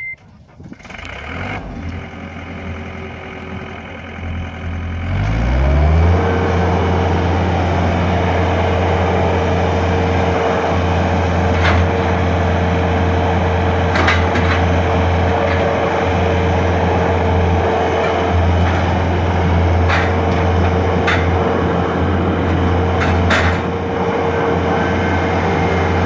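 2006 John Deere 320 skid steer's diesel engine running at low speed, then revving up about five seconds in and holding a steady higher speed while the loader arms are worked, with a few sharp clicks along the way.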